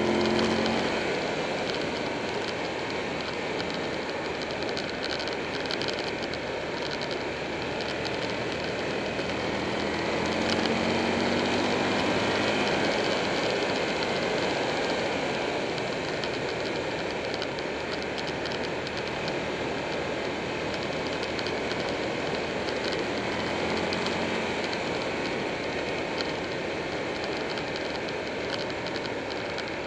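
Wind rushing over the microphone of a motorcycle at road speed, with the Buell 1125R's V-twin engine running beneath it. The engine's pitch rises at the start, again about ten seconds in, and once more near the end.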